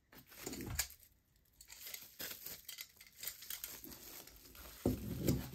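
Packaging crinkling, rustling and tearing as parts packets are handled and opened, with a louder thump near the end.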